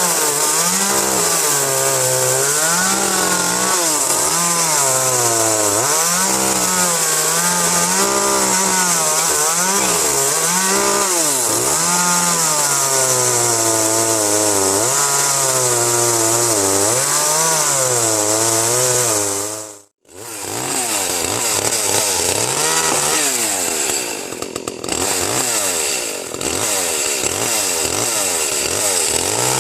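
Echo CS-310 chainsaw's 30.5 cc two-stroke engine running at high revs while cutting pine, its pitch dipping as the chain bogs in the wood and rising again, over and over. The sound cuts off abruptly for a moment about twenty seconds in, then the saw is running again.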